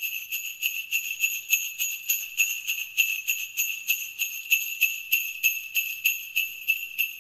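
Sleigh bells shaken in a quick, even rhythm of about four or five shakes a second, a bright high-pitched jingle with no other instruments.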